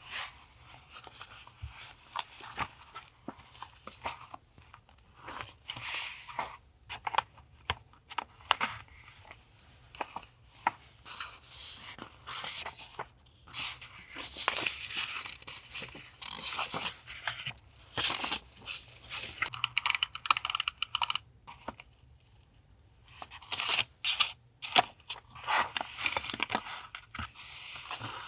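Paper being torn by hand and handled for a collage, in irregular rustling, ripping bursts with short pauses between them.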